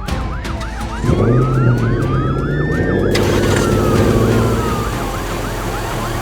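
Emergency vehicle sirens: a fast yelp sweeping up and down several times a second over a slow rising-and-falling wail, with a vehicle engine running underneath from about a second in.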